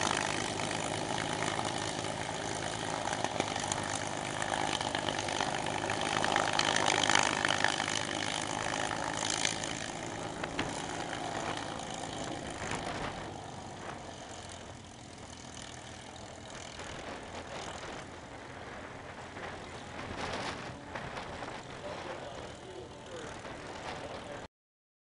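P-51D Mustang's Merlin V-12 engine running at low power while the fighter taxis, growing fainter as it moves away. The sound cuts off abruptly near the end.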